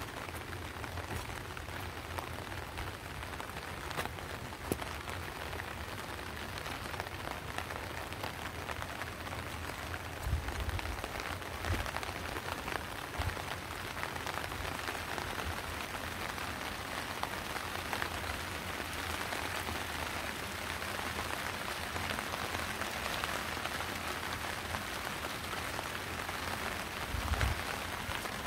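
Steady rain falling, with a dense patter of small drop ticks. A few low thumps come through about ten, twelve and twenty-seven seconds in.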